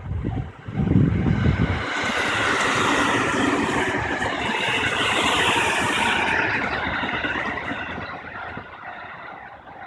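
A JR West 207 series electric commuter train passes close by: a heavy low rumble about a second in, then a broad rushing noise that swells and fades away over several seconds. The level crossing's warning bell rings in quick repeated dings before the train noise covers it and again as it dies away near the end.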